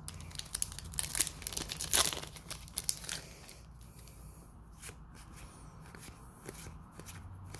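Foil booster-pack wrapper crinkling and tearing open, a rapid run of crackles for about the first three seconds. Then quieter rustling and a few small clicks as the trading cards are handled.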